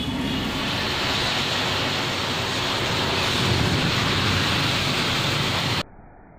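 Massed safety matches flaring up in a chain reaction: a loud, steady hissing rush of burning match heads. It cuts off suddenly near the end, leaving a much quieter, duller hiss.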